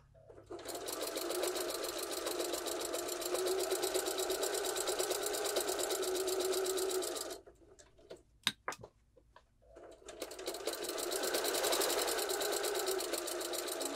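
Necchi electric sewing machine stitching a seam at a fast, even rate, running for about seven seconds, stopping, a few sharp clicks, then starting up again about ten seconds in.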